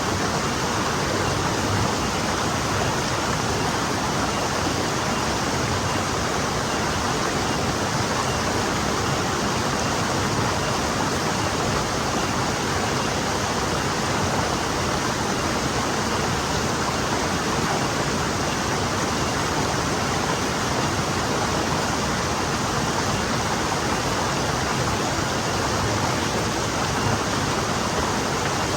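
Forest stream flowing over rocks: a steady, even rush of water without a break.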